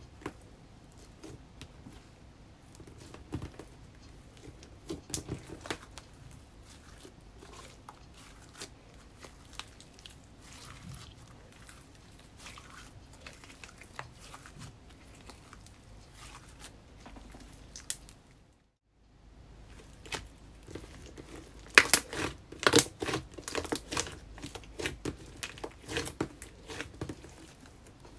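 Soft pink slime being pressed, kneaded and stretched by hand, giving sticky clicks, crackles and small pops. The clicks come thicker and louder in quick runs in the last few seconds.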